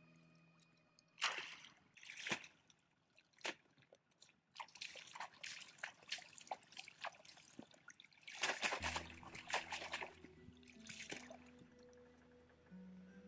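Shallow muddy water splashing and dripping as hands scoop and throw it, in a run of irregular splashes. The loudest come about a second in and again around two-thirds through. Soft background music comes back in near the end.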